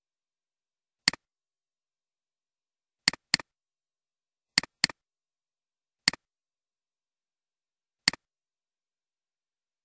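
Computer mouse button clicks: seven sharp clicks against dead silence. There is one single click, then two quick double-clicks about three and four and a half seconds in, then two more single clicks.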